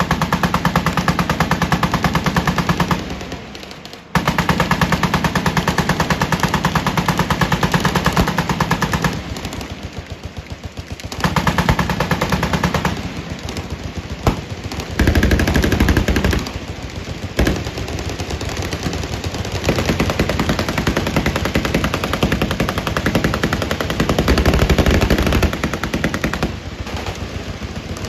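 Several machine guns firing long, rapid, overlapping bursts, with brief lulls about 3 and 10 seconds in and deeper, heavier fire joining around 15 and 24 seconds in.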